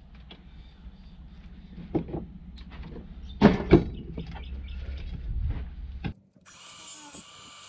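Metal clatter of a copper-wound ceiling-fan stator and tools being handled on a rusty steel workbench, with two sharp knocks close together about three and a half seconds in as the stator is set down. The sound cuts off abruptly about six seconds in and gives way to a quieter background.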